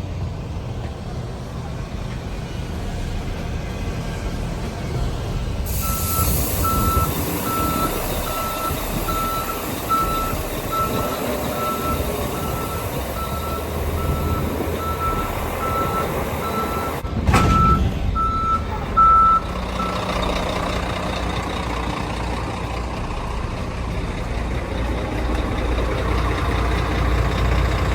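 Articulated truck's tractor unit running while reversing under its trailer, its reversing alarm beeping steadily about one and a half times a second for some fourteen seconds. A loud clunk about two thirds of the way through is the fifth wheel locking onto the trailer's kingpin.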